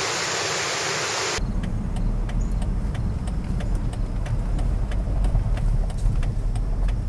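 A steady hiss for about the first second and a half, then a sudden change to the low rumble of a vehicle driving, heard from inside the cab, with faint light ticks.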